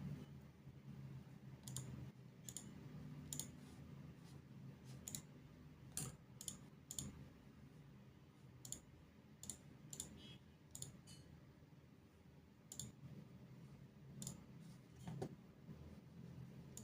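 Faint computer mouse clicks, irregular, roughly one a second, over a low steady hum.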